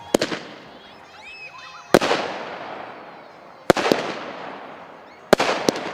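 Xplode Dangerous 25-shot fireworks battery firing four shots about 1.8 seconds apart. Each shot is a heavy bang with a quick second crack, trailing off over a second or so.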